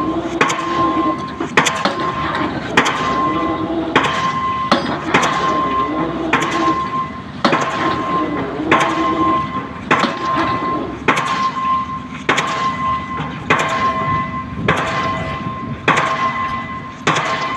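Excavator drop hammer striking a concrete pile in a steady rhythm, one heavy blow a little more than a second apart, each with a metallic ring.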